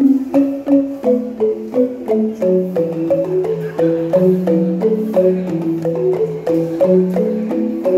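Angklung music: shaken bamboo tubes sounding a melody, several notes at once, with lower notes held beneath.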